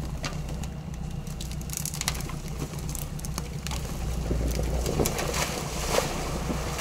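Chevrolet Niva's engine running at low revs as the SUV creeps down a steep bank, with scattered light clicks, then a splash about six seconds in as its front wheels drop into the river.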